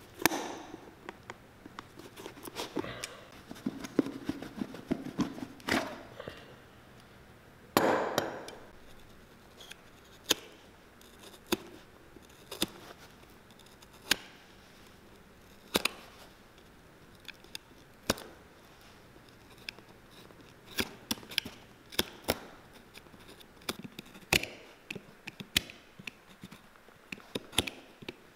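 Utility knife cutting through old welt stitching while end nippers grip and pull the leather welt strip off a boot: a string of sharp, irregular clicks and snaps with a few longer scrapes, the loudest about eight seconds in.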